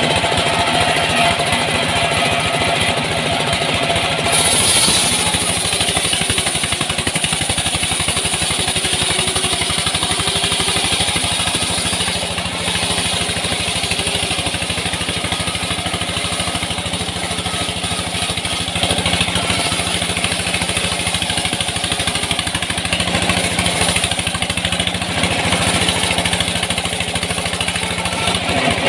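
Small engine running steadily at an even speed, the power unit of the wood saw.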